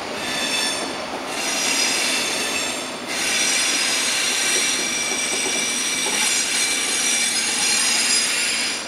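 Wheels of an SBB electric locomotive and double-deck passenger coaches squealing as the train rolls slowly across the station tracks: several high squealing tones over a rail rumble. The squeal breaks off briefly about a second in and three seconds in, then stops suddenly at the end.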